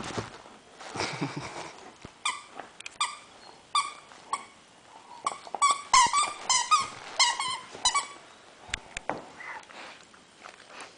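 Squeaker in a plush toy monkey squeaking again and again as a borzoi bites and chews it: many short high squeaks from about two seconds in to about eight seconds in, with rustling and mouthing sounds around them.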